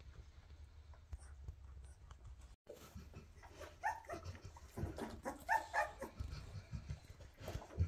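Weimaraner puppies about two and a half weeks old whimpering and squealing while nursing: short high cries, most of them in the second half.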